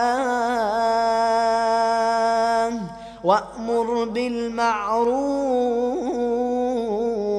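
A man reciting the Quran in melodic tajweed, Qalun reading, drawing out long held notes with ornamented turns. He pauses for a short breath about three seconds in, then starts a new phrase ('wa'mur') and holds it too.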